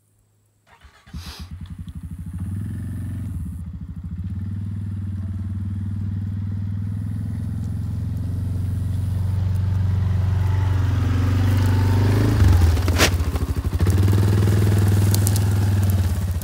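ATV engine running steadily and growing louder as the quad approaches and pulls up close. The engine note dips briefly about three-quarters through, and a single sharp knock follows.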